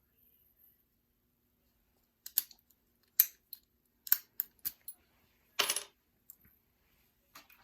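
Small metal clicks and taps as lockpicking tools and a small padlock are handled, starting about two seconds in. About eight sharp clicks, with a brief metallic rattle a little past the middle.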